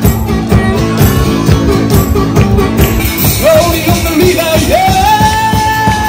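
Street busker strumming an acoustic guitar in a steady beat and singing into a microphone. Past the middle the voice climbs and holds one long high note.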